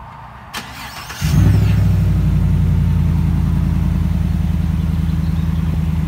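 2016 Chevrolet Silverado pickup's engine starting with a short crank after a click, catching about a second in and settling into a steady, loud idle.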